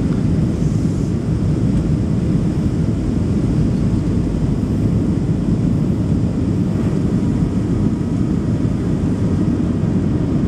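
Steady cabin noise of a Boeing 737 Next Generation airliner on approach: a low, even rumble of the engines and rushing air heard from inside the passenger cabin.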